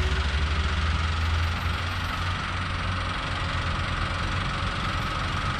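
Heavy diesel engines running, from a crawler excavator and a small truck climbing the hill, with a low, even throb that turns rougher about a second and a half in.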